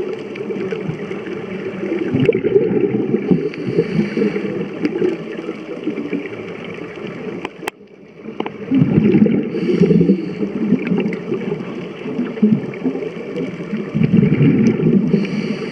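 A scuba diver breathing underwater through a regulator: a hiss on each inhale and a low gurgling rumble of exhaled bubbles, coming in bouts every five or six seconds.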